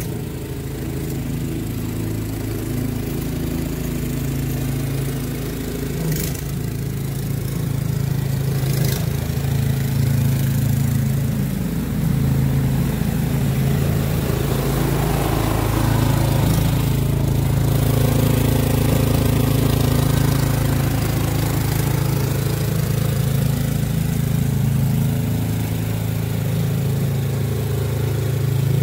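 A Toro SnowMaster 824 QXE snowblower's single-cylinder four-stroke engine running steadily under load while the machine throws snow. It grows louder over the first ten seconds or so as the machine comes closer.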